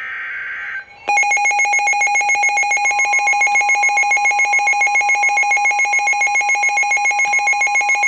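Emergency alert on NOAA Weather Radio: a short burst of digital SAME header data, then a weather-alert receiver's alarm beeping in rapid pulses, about seven a second, with the steady NOAA Weather Radio warning tone starting faintly beneath it a couple of seconds in.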